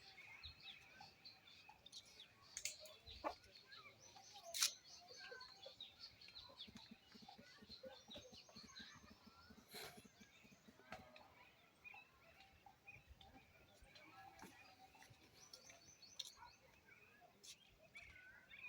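Faint outdoor ambience with small birds chirping throughout, broken by scattered sharp clicks; the loudest click comes about four and a half seconds in.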